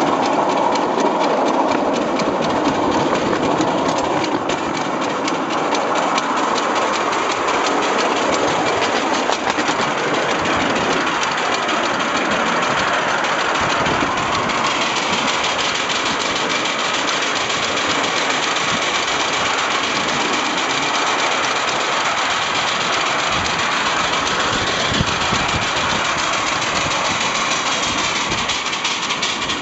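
7¼-inch-gauge live steam locomotive running along the track, heard from the driving seat as a steady mix of engine and wheel-on-rail noise. The sound turns brighter and hissier about halfway through.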